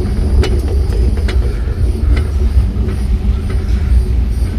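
Boat trailer carrying a skiff being towed over pavement behind a pickup truck, heard from on board the boat: a steady low rumble with scattered knocks and rattles.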